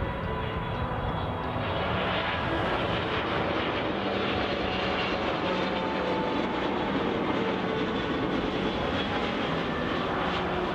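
Boeing 777-300ER jet airliner's engines running, a continuous steady rush with faint tones that slowly fall in pitch.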